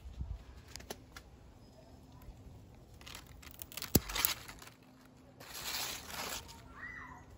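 Opo vine leaves rustling and crinkling as they are handled, with a sharp snip of garden scissors about four seconds in, the loudest sound.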